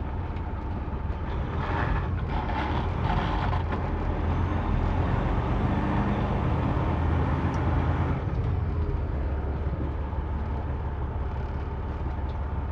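Semi truck's diesel engine running at low speed while the rig is backed up, louder for several seconds in the middle. A few short bursts of hiss come about two to three seconds in.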